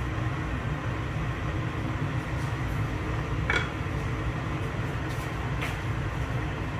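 Steady low background hum in the kitchen, with a light clack about three and a half seconds in as a wooden spatula is set down on a plate, and a fainter tap about two seconds later.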